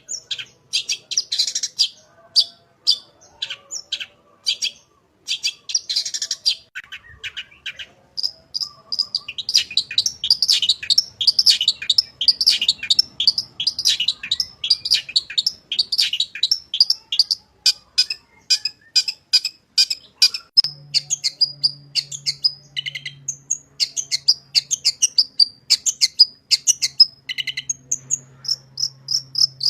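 Long-tailed shrike (cendet) singing a fast, dense run of high chirps and trills, with a short pause about seven seconds in.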